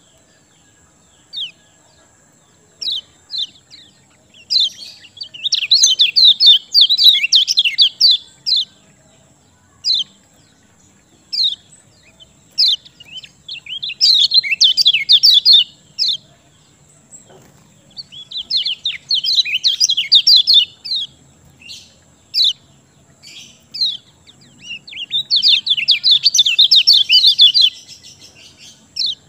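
Kecial kuning songbird singing in its lively, full-song state: single sharp chirps every second or two, broken by four bursts of rapid, high twittering song lasting two to four seconds each.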